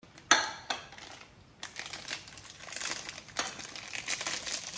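Crinkly ice cream wrapper being handled and crackling in a run of sharp bursts. The loudest burst comes about a third of a second in, and the crackling grows denser in the second half.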